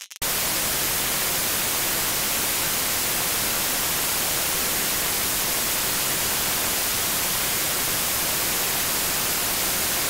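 Steady white noise: an even, unbroken hiss spread across all pitches from deep to very high, brightest at the top. It cuts in abruptly just after the start and then holds a constant level.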